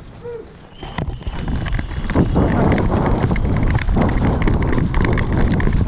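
Wind buffeting a body-worn camera microphone, mixed with heavy running footfalls. The rush builds up about a second in and stays loud.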